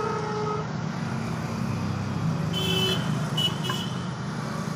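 Road traffic running steadily, with vehicle horns sounding: one short honk at the start, then a higher-pitched horn twice, about two and a half and three and a half seconds in.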